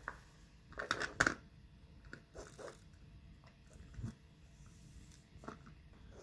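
Soft rustling and scuffing of a cat rubbing its head and cheeks against a plush toy mouse on a wooden floor, loudest in a couple of quick rustles about a second in, with a soft knock about four seconds in.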